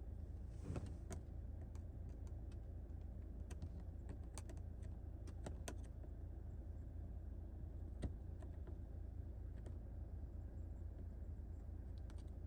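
Scattered small clicks and taps from handling and fitting a replacement glovebox lock in a Mercedes W212 glovebox, with one sharper click about eight seconds in, over a steady low hum.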